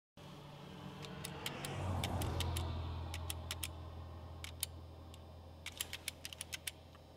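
Steady low hum of a car cabin, with a scattered run of sharp clicks from a small handheld camera being handled and its controls worked, coming in two flurries.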